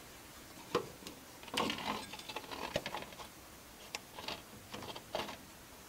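A corrugated plastic hose being fed down and pushed into a truck transmission's fill hole: irregular light clicks, knocks and scraping rustles of the tube against the metal case and of the hand handling it.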